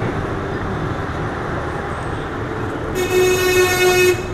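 Street traffic noise, with a vehicle horn sounding one steady blast of about a second near the end.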